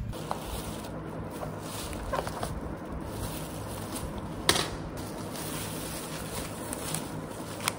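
Thin plastic carrier bags rustling as they are pulled off a takeaway food box, with one sharp crackle about four and a half seconds in, over a steady low hum.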